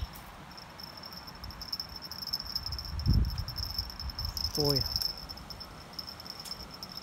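Steady high-pitched insect trill, with a dull low thump about three seconds in and a brief voice sound near the middle.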